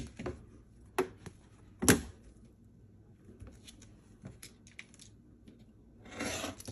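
Rotary cutter and clear acrylic quilting ruler being handled on a cutting surface while cutting cotton fabric: three sharp knocks as the ruler and cutter are set down and shifted, the loudest about two seconds in, then light ticks, and near the end a short swish of the rotary blade slicing through the fabric along the ruler.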